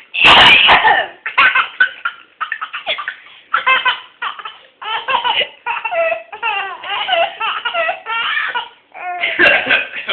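A baby laughing in a string of short, high peals between bursts of a woman's hard coughing as she chokes on food. There is a loud cough right at the start and another near the end.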